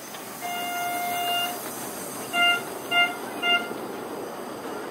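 Narrow-gauge steam locomotive's whistle: one long blast, then three short toots about half a second apart.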